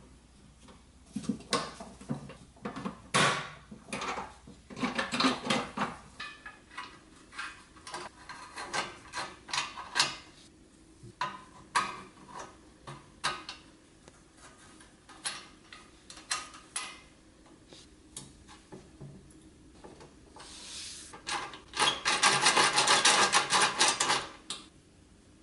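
Small steel gears and parts of a Nylint Traveloader toy clicking and clinking against its powder-coated steel frame as they are fitted by hand. Near the end comes a dense run of rapid clicking as the meshed gear train is turned.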